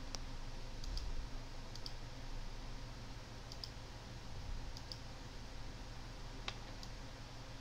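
Computer mouse buttons clicking, single and double clicks at irregular intervals.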